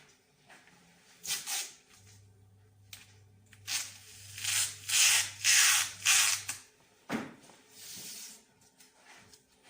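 Compressed air hissing in several short bursts, over a low electric hum that stops about two-thirds of the way in; a single knock follows.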